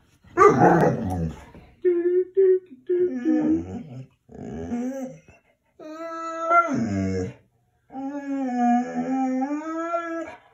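Dog vocalizing at its owner for attention: a harsh, gruff outburst at the start, then a string of short whines that grow into long, wavering, howl-like calls, the longest near the end.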